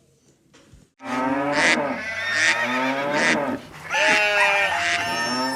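Farm animal calls, with cattle mooing among several overlapping animal voices; they start suddenly about a second in and stop just before the end.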